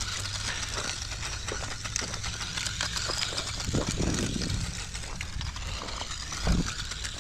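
A Losi Micro B 1/24-scale RC truck's brushed motor running as it drives through gravel, with small stones crackling and clicking under its tyres. There is a low thump about six and a half seconds in.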